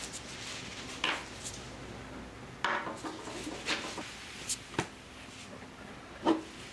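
Kitchen clatter: dishes and utensils clinking and knocking about six times at irregular intervals, the loudest knock near the end.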